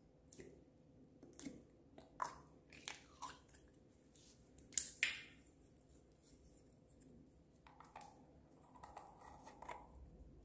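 Slime being pressed, peeled out of its plastic tub and stretched by hand: scattered sticky pops and clicks, the loudest pair about five seconds in, then softer crackling near the end.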